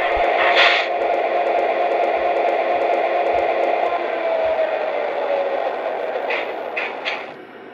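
Diesel engine sound from a GP60M O-gauge model locomotive's onboard sound system, running steadily through its speaker, with short hissing bursts about half a second in and three more near the end before the sound drops off.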